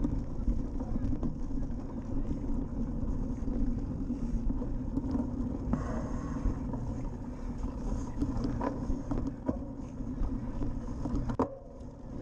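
Cyclocross bike riding over a bumpy grass course, heard from an action camera on the move: a steady low rumble of tyres, rattle and wind on the microphone, with scattered clicks and a sharper knock about eleven seconds in.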